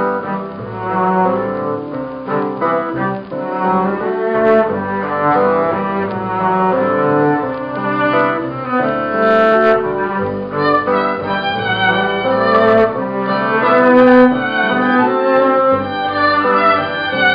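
Live band playing an instrumental passage of the song with no vocals: many sustained notes layered over a steady low bass, with occasional sharp hits.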